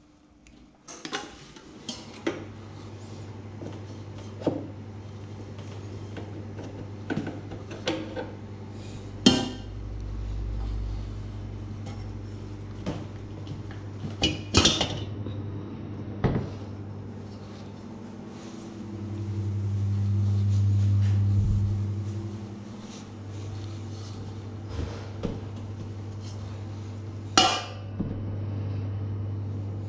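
Scattered knocks, clinks and clatter of hard items being handled, with three louder bangs, over a steady low machine hum that swells louder for a few seconds past the middle.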